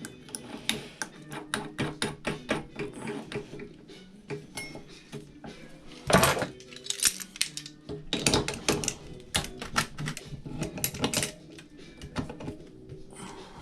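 Metal clicking and clanking of two pairs of Vise-Grip locking pliers working a drill chuck by hand to tighten a drill bit without a chuck key. It is a quick run of sharp clicks with a louder clank about six seconds in.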